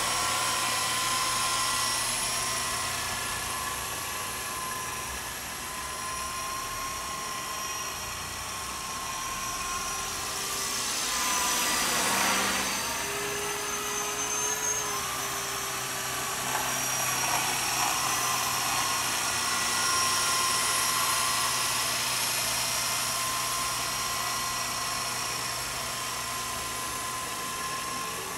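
Walkera Lama 400 electric coaxial RC helicopter in flight, its motors and rotors giving a steady high whine. The whine gets louder about twelve seconds in and shifts briefly in pitch a few seconds later.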